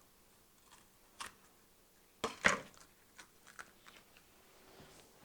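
Knife cutting into a bell pepper on a cutting board: a few crisp crunching cuts and knocks, the loudest around two and a half seconds in, with lighter ticks after.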